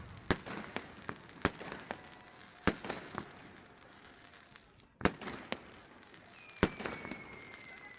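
New Year fireworks and firecrackers going off around the crowd: about ten sharp bangs, irregularly spaced, with crackling between them and a brief lull just before a bang about five seconds in. Near the end a long whistle slowly falls in pitch.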